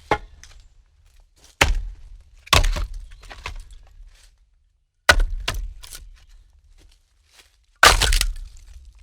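Wooden logs being set down onto a stack: hard wooden knocks and clatters in about five separate groups, a second or more apart, the loudest and longest clatter near the end.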